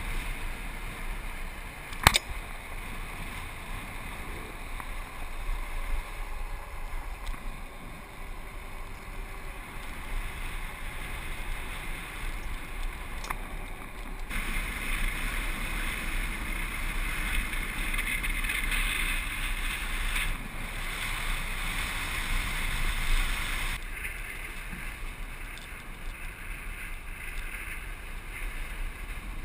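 Rushing wind on the microphone and rolling noise of a land yacht sailing fast across a dry lakebed, with one sharp click about two seconds in. Between about fourteen and twenty-four seconds the rush turns brighter and louder.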